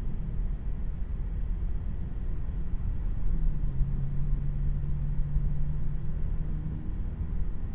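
Road and tyre rumble inside the cabin of a 2026 Tesla Model 3 on the move, with no engine sound. A steady low hum joins in about three seconds in and fades out near the end.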